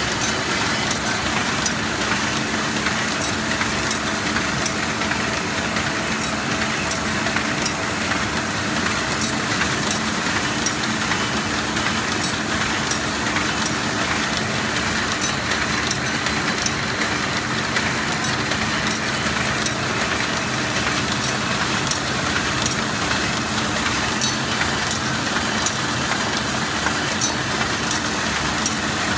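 Paper shopping bag making machine with handles running: a steady mechanical hum and clatter with frequent sharp clicks from its moving parts.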